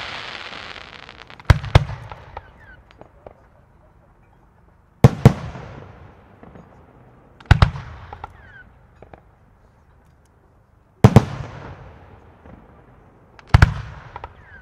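Italian aerial firework shells fired singly: five sharp bangs in pairs about two and a half seconds apart, each trailing off in a rumbling echo.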